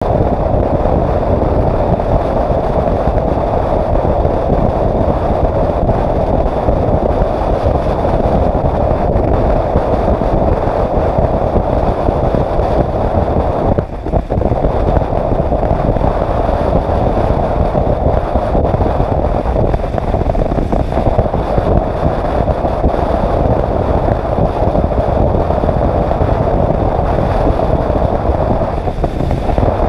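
Steady rush of wind on the microphone mixed with the engine and tyre noise of a motorcycle cruising at motorway speed. The noise dips briefly about halfway through.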